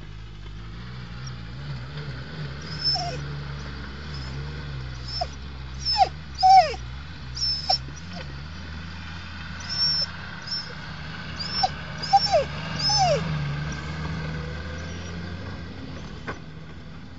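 A dog whining and yipping in many short, high cries, some sliding downward, through most of the clip. Underneath runs the steady low drone of a Suzuki Samurai's engine.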